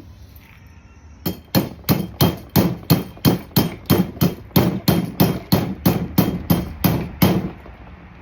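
A hammer striking repeatedly and steadily, about three blows a second for some six seconds, starting about a second in.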